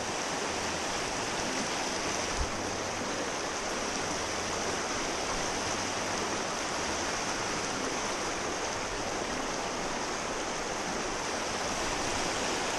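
River water running: a steady, even rush of flowing water, with one small knock about two and a half seconds in.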